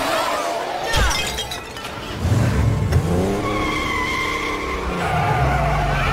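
A crash about a second in. Then a car engine revving up and its tyres squealing as the drive wheels spin in a smoking burnout.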